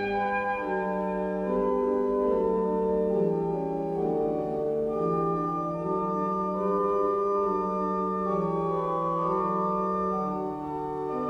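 An 18th-century church pipe organ playing alone: sustained chords, with the inner and bass lines moving from note to note every second or so.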